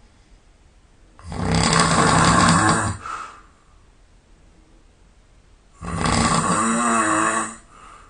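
A person snoring loudly: two long snores, each just under two seconds, about four and a half seconds apart, with near quiet between them. The second snore has a wavering buzzy pitch.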